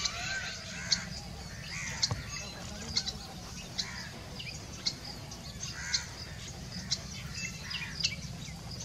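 Wild birds calling in forest: short, sharp high chirps about once a second, mixed with other lower calls, over a steady low rumble.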